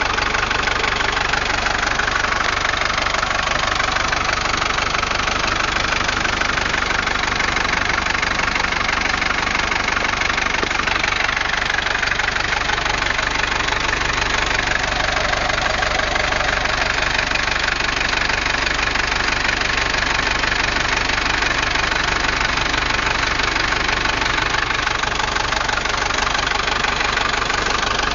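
Mercedes-Benz W123 240D's 2.4-litre four-cylinder OM616 diesel idling steadily, heard close up over the open engine bay.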